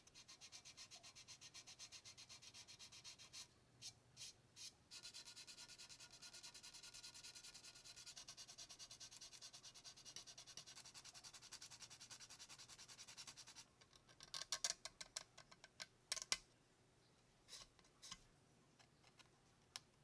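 600-grit sandpaper rubbing on the plastic body shell of a 1/24 scale model car in quick, even back-and-forth strokes, faint, with a short break a few seconds in. About two-thirds of the way through, the sanding stops and gives way to a few scattered, louder scrapes and clicks.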